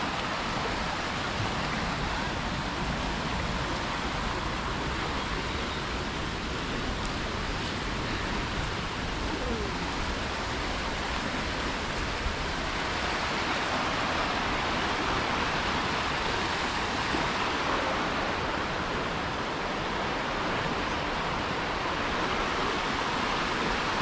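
Fast-flowing creek rushing over shallow rapids: a steady, even rush of water.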